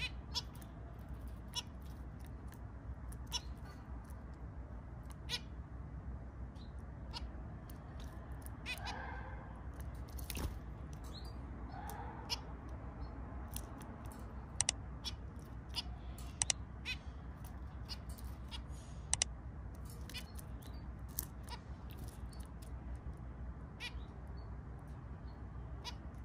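Caged zebra finches calling: a scatter of short, sharp chirps and clicks, with a couple of longer calls falling in pitch about nine and twelve seconds in, over a steady low hum.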